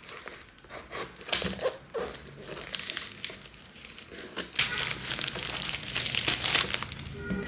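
Packaging being unwrapped by hand: a run of short crinkling and crackling handling noises, busier in the second half.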